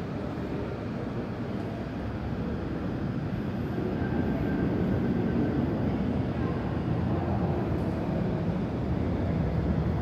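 Airbus A330's jet engines at takeoff thrust during the takeoff roll: a steady low rumble that grows louder about four seconds in, heard through terminal window glass.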